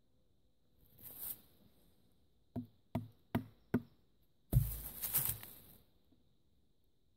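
A bushcraft knife cutting into a wooden stick on a stump. There is a short scrape about a second in, then four sharp wooden knocks about 0.4 s apart, then a louder, longer crunching strike as the blade bites into the wood.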